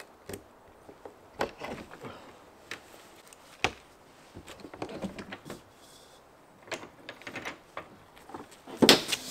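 Latches on a toy hauler's rear ramp door being undone by hand: scattered short metal clicks and knocks, with a louder clatter near the end.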